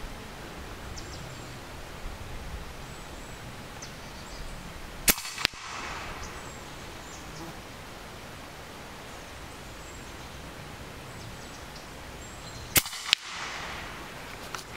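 Two shots from an EDgun Leshiy 2 semi-automatic .25-calibre PCP air rifle, about five and thirteen seconds in. Each is a sharp crack followed about a third of a second later by a second sharp crack.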